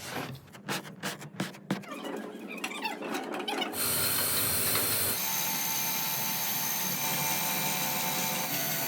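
A few irregular clacks and knocks, then about four seconds in a machine starts and runs steadily with a strong hiss and a high whine, typical of a motor-driven mixer in foam production.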